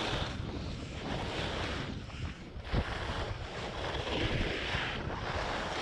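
Skis sliding and carving over packed snow, a rough scraping hiss that swells and fades with each turn, with wind buffeting the microphone. A short knock about three seconds in.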